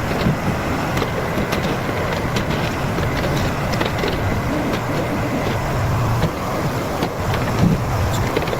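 Diesel engine of a wheeled excavator with a front blade running steadily under load as it works over muddy ground, with scattered light ticks and knocks.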